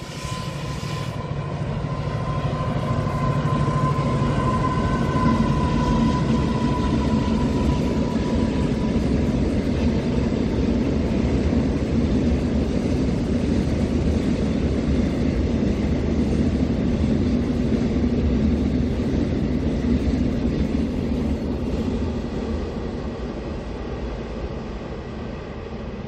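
Diesel-hauled freight train passing over a concrete viaduct: the locomotive's engine and the wagons rolling on the rails make a steady low rumble. It swells to its loudest a few seconds in and fades slowly as the train moves away. A steady high whine sounds over the first several seconds.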